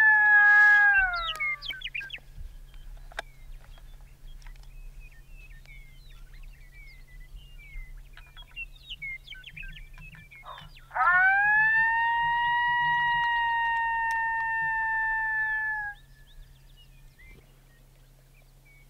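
Long, drawn-out coyote howls: one trails off and ends about a second and a half in, and another rises sharply about 11 s in and holds for about five seconds. Between them come faint, scattered high yips from a group of coyotes answering in the distance.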